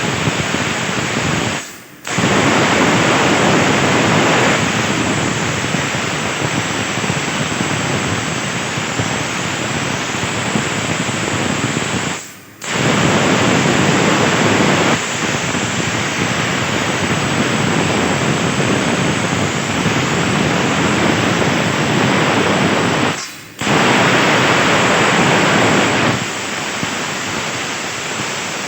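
CNC plasma torch cutting 1.5 mm sheet steel: a loud, steady hiss. It stops briefly three times, about ten seconds apart, and each time comes back louder for a couple of seconds before settling.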